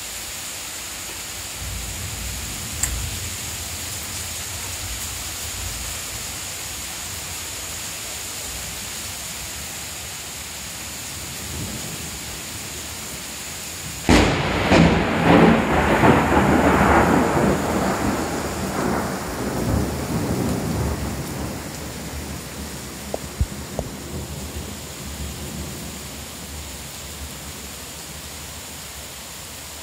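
Heavy rain falling steadily, then about halfway through a sudden loud crack of thunder that rumbles on for several seconds and fades back under the rain.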